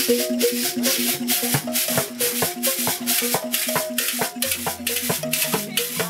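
Background music with a steady shaker rhythm, about four to five strokes a second, over a short repeating melody; a bass line comes in near the end.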